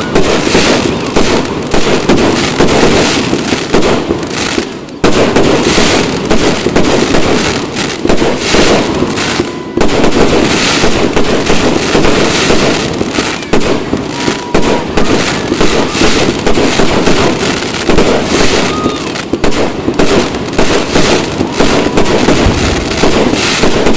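Aerial fireworks going off in a rapid, continuous barrage of overlapping bangs and crackles, with a brief lull just before five seconds in.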